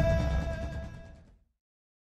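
Music for a classical dance ending on a long held note, fading out to silence about a second and a half in.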